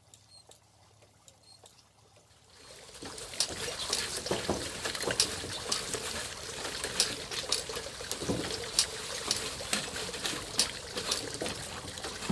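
Soot and creosote flakes trickling and rattling down inside a stainless steel wood-stove flue pipe as it is brushed out, starting about two and a half seconds in as a dense rustle full of small ticks.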